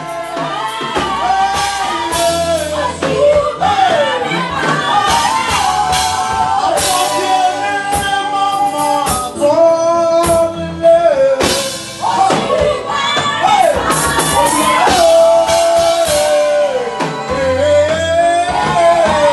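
Worship song: a singer holding and bending long notes over band accompaniment with a steady beat.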